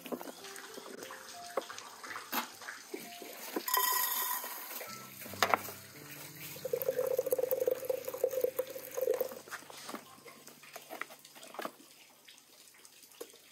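Hot water running from a samovar's tap into a glass for a couple of seconds around the middle, among light clinks of glasses and dishes on the table.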